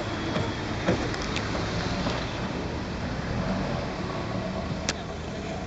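An engine runs steadily amid street noise, with a few sharp knocks, the sharpest near the end.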